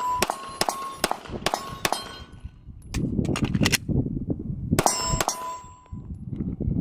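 Pistol shots on steel targets, each shot followed by the ringing clang of the hit plate. A fast string of about five shots, a pause with a few fainter cracks around three seconds in, then two more shots and rings about five seconds in. The string ends in a stoppage that the shooter suspects comes from the magazines.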